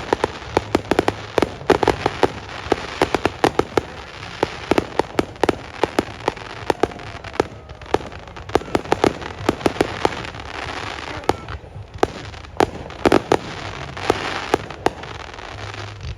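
Fireworks display: a rapid, irregular barrage of sharp bangs and pops over continuous crackling from bursting shells.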